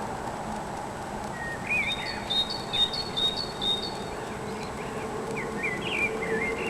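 Songbirds singing: a run of short, repeated high chirps in the middle, then another brief twittering phrase near the end, over a steady background hum.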